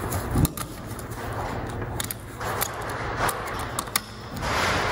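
Small metal clicks and light scraping from gloved hands fitting the wastegate linkage on a K24 turbocharger, with a sharper knock about half a second in, over a steady background hiss and hum.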